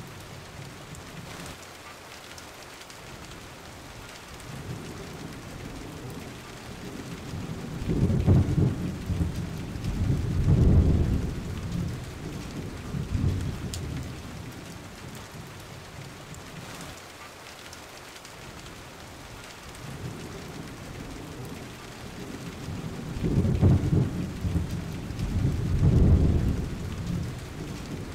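Steady rain hiss with low rolls of thunder swelling and fading, two close together about eight seconds in and the same pair again some fifteen seconds later, repeating like a looped rain-and-thunderstorm ambience track.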